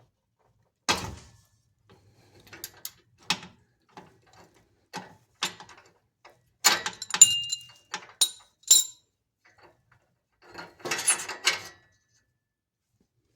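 Ratchet and oxygen sensor socket clanking and clicking in a series of separate sharp metal knocks, one of them ringing briefly, as a downstream oxygen sensor is worked loose from the exhaust pipe.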